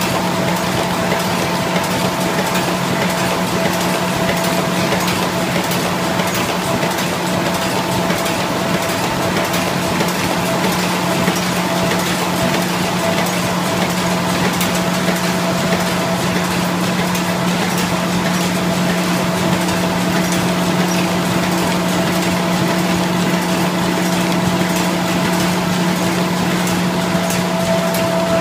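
Dingshung NIKKO Legato box folder-gluer running steadily: a constant machine hum with several fixed tones over an even mechanical clatter, with faint fine ticks.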